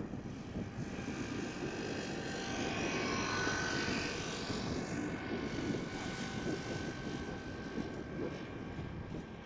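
Twin-engine Airbus A330-300 jet airliner on its takeoff roll at takeoff thrust: a continuous engine rumble with a steady high whine over it, swelling a little about three to four seconds in.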